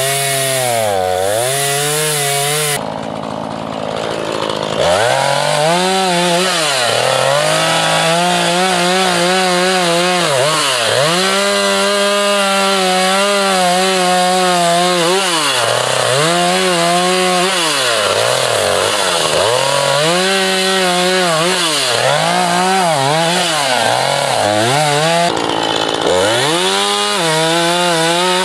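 Husqvarna 440 two-stroke chainsaw cutting through a log at full throttle, its engine pitch repeatedly dipping under load and climbing back. The sound drops off about three seconds in, then revs back up about two seconds later and keeps cutting.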